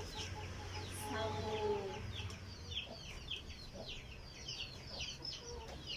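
Chickens calling faintly: a drawn-out pitched call in the first two seconds, then a quick run of short, high, falling chirps, several a second.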